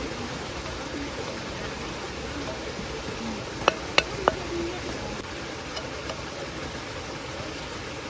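Steady rushing of a stream, with three sharp clicks in quick succession about four seconds in.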